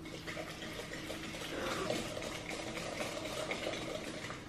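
Wire whisk beating cake batter in a glass bowl: a fast, steady scratching and stirring, a little louder from about a second and a half in.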